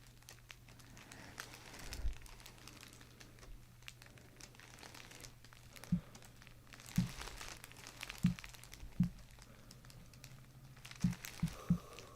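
Faint crinkling and rustling as the patient shifts on the chiropractic table, over a low steady hum. About seven soft thumps come in the second half, the last three in quick succession near the end.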